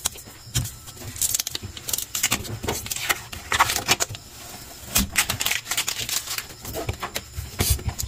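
Irregular crinkling and clicking: protective plastic film and tape being handled and pulled off the shelves of a new refrigerator.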